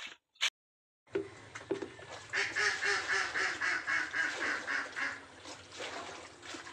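Birds calling: a quick run of repeated honking calls, about four a second, from a little after two seconds in to about five seconds in.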